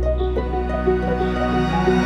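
Gentle instrumental background music: a held low bass note under a steady run of short melodic notes.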